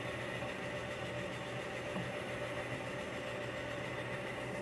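Drill press motor running with a steady hum while its bit sits in a wooden pen blank.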